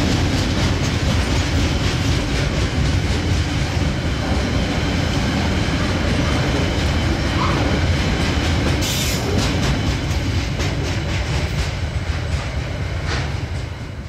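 Tail end of a slow freight train rolling past: the wagons' wheels clatter over the rail joints, with strong wind rumbling on the microphone. The clicking thins out as the last wagon goes by about halfway through.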